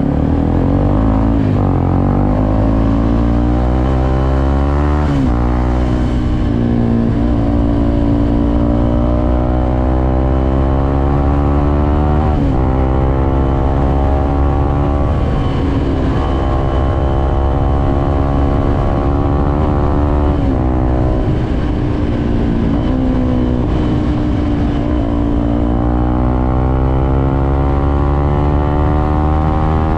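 Suzuki Gixxer SF 250's single-cylinder engine under way, its pitch climbing slowly as it accelerates and dropping sharply at gear changes about four times, then climbing again near the end.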